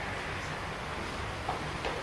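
Steady street background noise, a low rumble under a hiss, with two short faint clicks in the second half.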